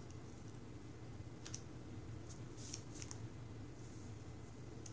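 Tabby cat biting and pawing at a string on carpet: a few faint, scattered clicks over a low steady hum.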